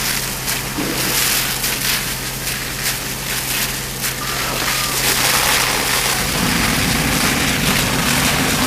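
Steady rushing hiss of water from a fire hose, over the low hum of a fire engine running at its pump. A rougher low rumble comes in about six seconds in.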